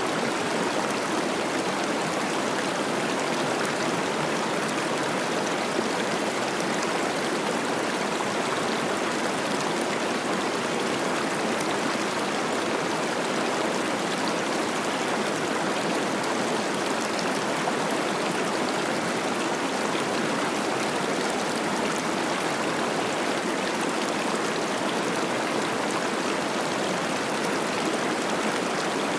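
Cache la Poudre River running high with spring snowmelt: steady rushing and babbling of water over rocks, an even hiss without a break.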